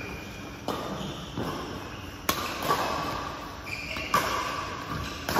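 Badminton rackets striking a shuttlecock in a fast doubles rally: about six sharp hits at uneven intervals, echoing in a large hall.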